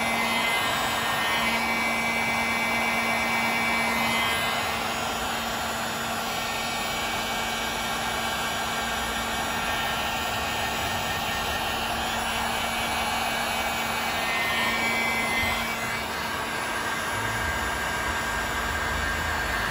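Electric heat gun blowing steadily with a motor hum and whine, shrinking heat-shrink butt connectors on spliced motorcycle stator wires.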